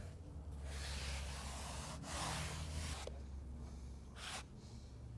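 Scraping and rubbing strokes of floor-installation work: two long strokes in a row, then a short one near the end, over a low steady hum.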